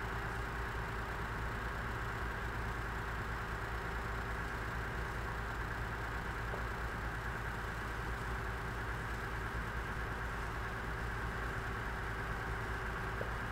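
Engine of heavy construction equipment idling steadily, with an even, unchanging hum.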